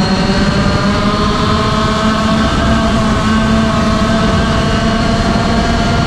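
Racing go-kart engine at full throttle down a straight, its pitch rising slowly as the kart gathers speed.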